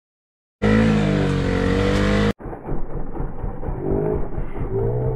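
A loud burst of motorcycle engine noise starts about half a second in and cuts off abruptly after a second and a half. Then comes a motorcycle riding along, a low engine rumble with steady throbbing wind buffeting on the helmet-camera microphone.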